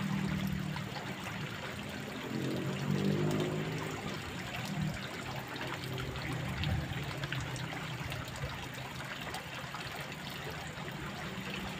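Fast-flowing stream water running and trickling steadily. Faint music plays underneath, clearest in the first half.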